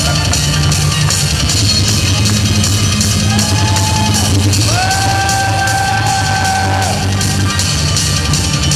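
Loud rock dance music with a steady drum beat. About halfway through, a long held note slides up into pitch and is sustained for a couple of seconds.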